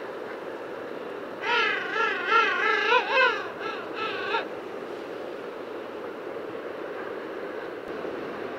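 Humboldt penguin braying: a loud, wavering, pitched call that starts about a second and a half in and runs for about three seconds, ending in a few softer short notes, over a steady background hiss.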